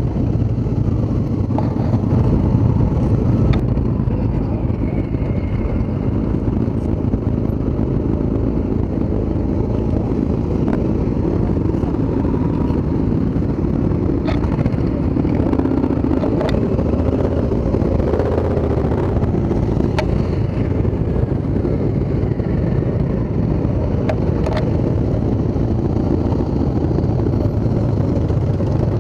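Motorcycle engines idling and creeping along at walking pace close around, a steady low rumble. A few sharp clicks cut through it.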